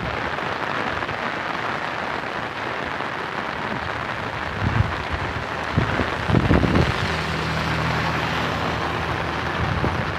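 Heavy rain falling steadily with a constant hiss on the wet road. A few low thumps come around the middle, and from about seven seconds in the low steady hum of an auto-rickshaw's small engine joins the rain.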